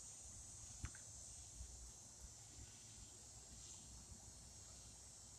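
Near silence: faint steady high-pitched chirring of insects, with one soft click about a second in.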